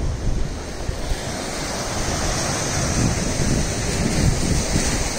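Sea surf breaking and washing against the rocks and concrete blocks of a breakwater, with wind gusting on the microphone as uneven low rumbles.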